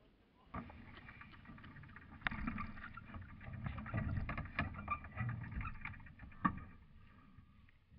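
Small sailboat under way, a Hunter Europa 19: a rushing, sloshing noise of water and wind around the hull and the onboard microphone, with irregular knocks and clatter on deck. It sets in about half a second in and dies away near the end.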